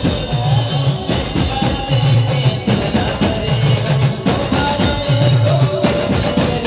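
Loud amplified street band music from a procession band truck: drums beat out a repeating heavy pattern under a melody line.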